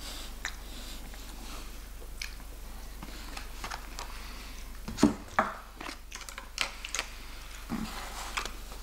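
A person chewing and biting crispy KFC fried chicken up close, with scattered wet crunches and mouth clicks. The loudest crunch comes about five seconds in.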